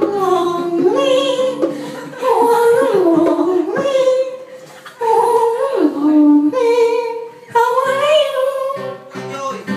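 A singer's voice, amplified through a handheld microphone, singing phrases of long held notes that slide up and down, with short breaks between phrases.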